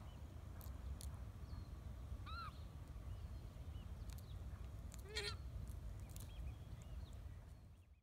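Pukeko calling twice: a short arched squawk about two and a half seconds in, then a louder, harsher squawk about five seconds in, over a steady low rumble.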